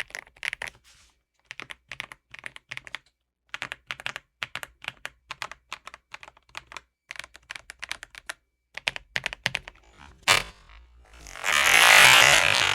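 Typing on a Redragon K745 Pro mechanical keyboard modded with cork and a PCB tape mod and fitted with new keycaps: runs of keystrokes broken by short pauses. About ten seconds in comes a single sharp hit, then a loud rushing whoosh to the end.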